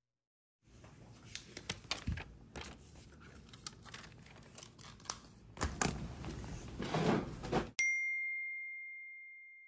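Close rustling with scattered clicks and knocks, the loudest knocks near the middle. About three-quarters of the way in comes a single bright ding, a one-tone chime sound effect, which rings on and slowly fades.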